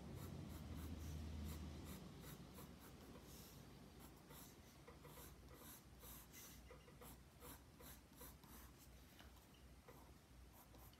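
Black Prismacolor colored pencil scratching on sketchbook paper in a faint, irregular run of short strokes. A low hum sits under it for the first two seconds or so.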